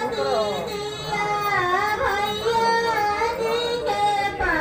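Several high voices singing a Bhojpuri Gurhathi wedding song together in long held, wavering notes.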